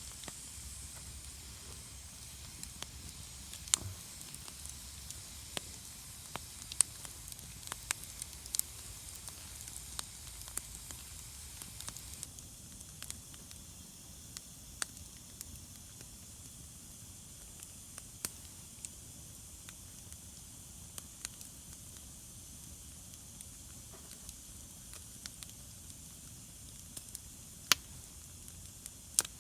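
Wood campfire crackling, with sharp irregular pops over a steady hiss.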